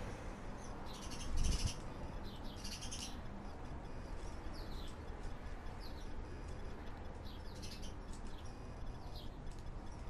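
Small bird chirping: short, falling chirps repeated every second or so, with a low thump about a second and a half in, over a steady low rumble.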